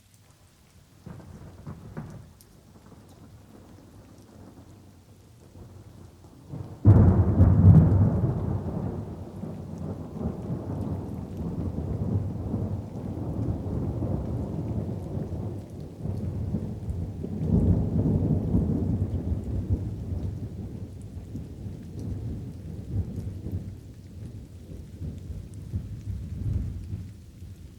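Light rain with thunder: a soft rumble about a second in, then a sudden loud thunderclap about seven seconds in that rolls on at length, swells once more past the middle, and slowly fades toward the end.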